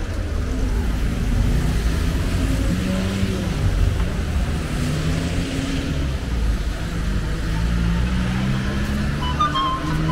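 Steady city street traffic: car engines running and passing on a wet avenue, a continuous rumble with a hiss of tyres. Near the end, a short pattern of high tones begins, typical of a mobile phone starting to ring.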